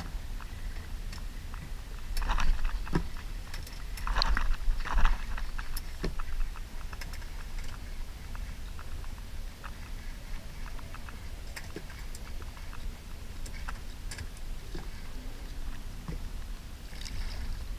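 Water lapping and splashing against a kayak's hull, with wind rumbling on the microphone and scattered small clicks and crackles. Two louder splashes come about two and four seconds in.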